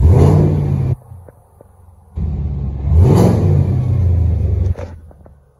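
The Chevrolet Camaro's 6.2-litre LS3 V8 is revved twice with the car standing still. First comes a sharp rev about a second long that cuts back to a low idle. About two seconds later a longer rev climbs, holds for a couple of seconds and drops back to idle near the end.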